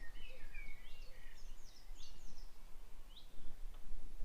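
Small birds chirping, with many quick short calls overlapping, over a steady low background rumble.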